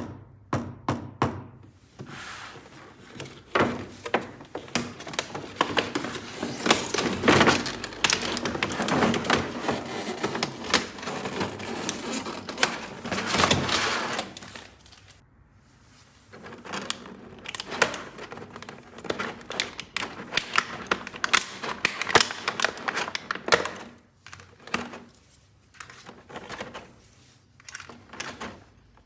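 Plastic toy pieces and packaging being handled: a run of sharp plastic clicks and knocks, with a long stretch of crinkling and rustling in the middle. A brief pause follows, then more clicks.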